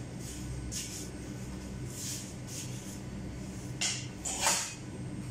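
Cardboard packing being handled and pulled off a scooter's deck: short rustling swishes a few times, the loudest about four seconds in, over a steady low hum.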